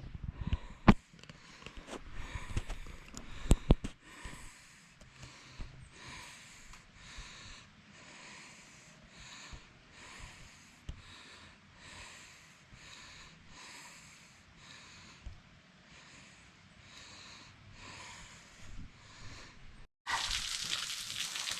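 A hiker breathing hard in a steady rhythm, about one and a half breaths a second, with a few sharp knocks of footsteps or trekking poles on rock in the first few seconds. Near the end it cuts suddenly to the louder steady splashing hiss of a small waterfall trickling down the rock.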